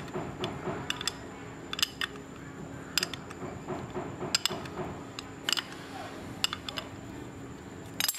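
Sharp metallic clinks of a steel open-end spanner against a bicycle crank bolt and crank arm, one ringing clink about every second, over a faint steady hum.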